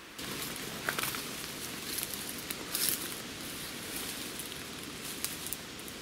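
Footsteps through forest undergrowth, with rustling and scattered crackles of dry leaves and twigs underfoot. The sound cuts in abruptly at the start.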